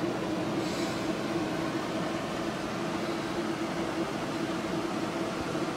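Xbox 360 console running with a disc in its drive: a steady mechanical hum with a constant low tone, and a short hiss about a second in.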